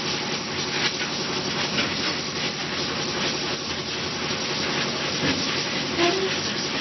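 Automatic casting machine for rubber jigs running, with a steady noise of hiss and rapid small clicks. A brief tone sounds about six seconds in.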